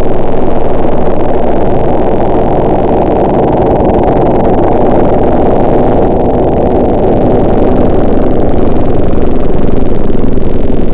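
A loud engine running steadily, with no clear rise or fall in pitch.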